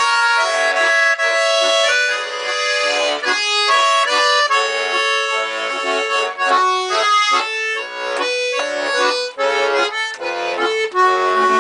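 Bayan (Russian chromatic button accordion) playing an instrumental interlude: a melody of quickly changing notes over held chords.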